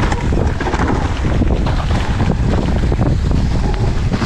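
Wind rushing over the microphone as a mountain bike rides fast down a leaf-covered dirt trail, with the tyres rolling over leaves and the bike rattling in many short clicks.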